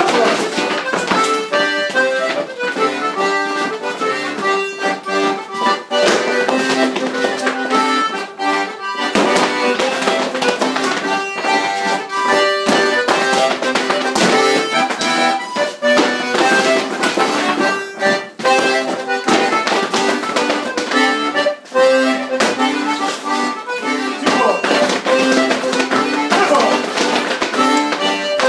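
Accordion playing a lively traditional dance tune for rapper sword dancing, with many sharp taps and clicks from the dancers running through it.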